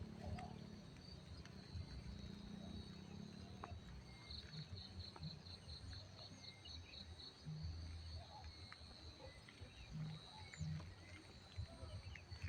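Faint insect chorus in a cucumber field: a steady high thin trill throughout, with a run of about four chirps a second for around three seconds near the middle. Low rumbling and small clicks from handling or wind sit underneath.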